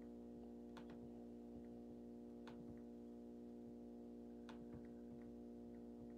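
Near silence: a faint steady hum with a few scattered sharp clicks.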